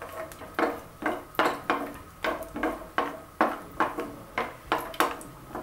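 A wooden spatula knocking and scraping against a non-stick frying pan while stirring cashews frying in ghee. The knocks come about three a second, each with a brief ring from the pan.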